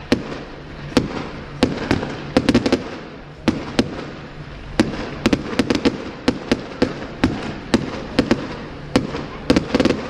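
Professional firework display: many sharp bangs and cracks going off in quick, irregular succession, some in tight clusters.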